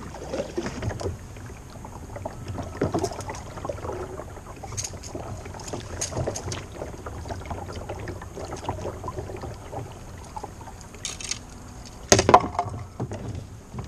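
Kayak paddling: the paddle dipping and splashing, with scattered knocks and handling noises against the kayak, and a sharp thump about twelve seconds in.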